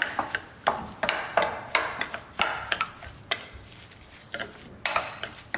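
Steel spoon stirring and scraping a crumbly semolina and curd mixture in a glass bowl: a string of short scrapes and clicks of metal on glass, about two or three a second.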